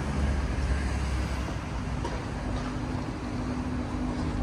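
Road traffic noise: a steady rush of vehicles, with a low engine hum that sets in about a second and a half in.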